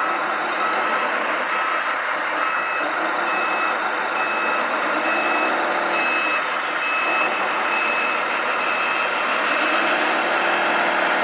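Reversing alarm from a radio-controlled truck's sound module, beeping about once every 0.7 s as the tractor unit backs up a tipper trailer. A steady engine-like drone runs underneath.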